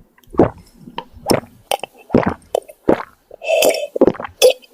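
A quick string of short gulping and smacking mouth noises, as of drinking the potion down, with a brief breathy burst about three and a half seconds in.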